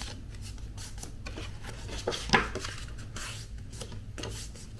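Card stock being folded in half by hand along its scored line and creased flat: paper rustling with a few short taps and rubbing strokes, the sharpest about two seconds in.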